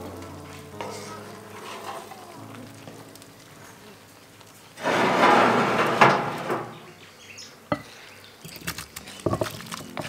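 Wooden spoon stirring a chicken-and-vegetable filling in a cast-iron pot, the mix sizzling. In the middle comes a loud noisy rush lasting about two seconds, followed by a few sharp knocks near the end.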